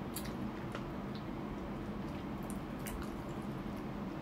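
Close-up wet chewing and sucking of a person eating with her fingers at her mouth, with a few short wet mouth clicks and smacks.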